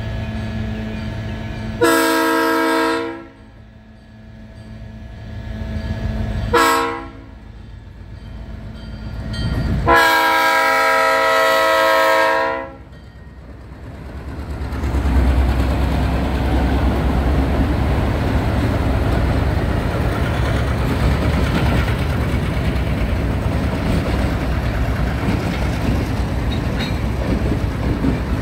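ALCO diesel locomotives led by C636 No. 3642 sounding the horn for the level crossing: a long blast, a short one, then another long one. About halfway through, the locomotives pass close by with a steady engine rumble and wheels clattering over the rails.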